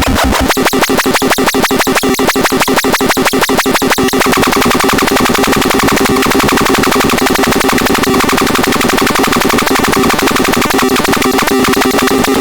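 Synthesizer playing a harsh, noisy electronic sound: a rapid pulsing stutter for the first few seconds, then a steady buzzing drone of several held tones.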